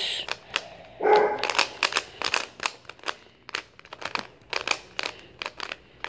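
A 3x3 Rubik's cube being turned quickly by hand: a run of quick plastic clicks and clacks as the layers snap round, about three or four a second, at an uneven pace.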